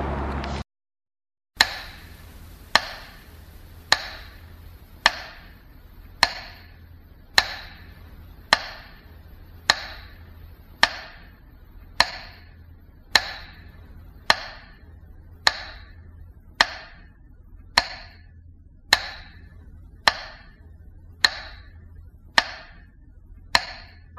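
Metronome ticking slowly and evenly, about one sharp tick a second with a short ringing tail, for a minute of silence. It starts about a second and a half in, after a brief silence.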